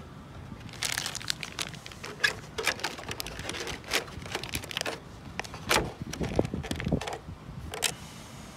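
Plastic Ziploc bag crinkling and crackling as it is handled and pressed down into a thin-walled 3D-printed plastic fuselage, an irregular run of sharp crackles and small knocks starting about a second in.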